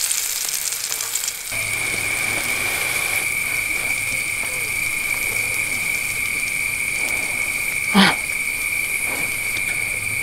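Food sizzling briefly in a frying pan on a gas camping stove. After that comes a steady, high-pitched chirring of night insects, with one sharp knock about eight seconds in.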